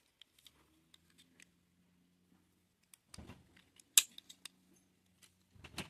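Plastic Lego bricks clicking as they are handled and pressed together: a few faint clicks, with the sharpest snap about four seconds in.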